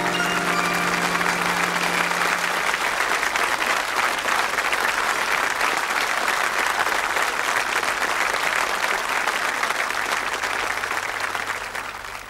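Studio audience applauding steadily, fading out near the end. Held notes of a closing music cue die away under the clapping in the first few seconds.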